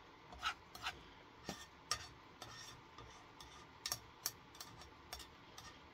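Metal tongs scraping and tapping against a small frying pan while stirring scrambled eggs, in light irregular clicks.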